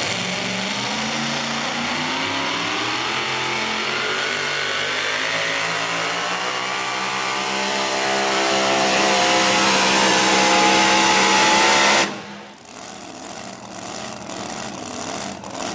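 Super-modified four-wheel-drive pulling truck's engine at full throttle, hauling a weight-transfer sled, its pitch rising steadily as the revs climb. It cuts off abruptly about twelve seconds in, as the pull ends.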